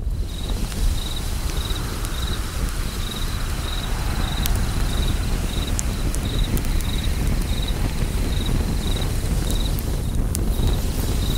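Crickets chirping about twice a second over a low steady rumble, with scattered sharp pops of a crackling fire.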